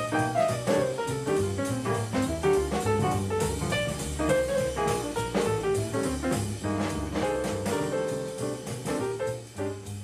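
Small jazz combo playing: a horn line over double bass and drum kit.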